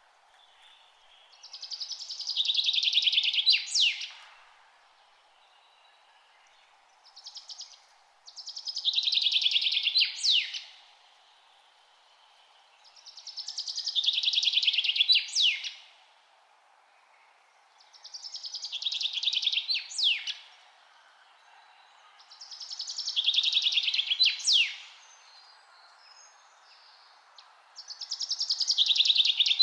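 A songbird singing the same short song over and over, about every five seconds: a rapid, fast-pulsed trill that swells in loudness for about two seconds and ends in a sharp downward-sweeping note. A faint steady hiss lies beneath.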